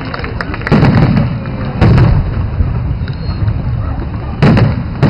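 Aerial firework shells bursting: three loud bangs, one under a second in, one about two seconds in and one near the end, each followed by a rolling low rumble.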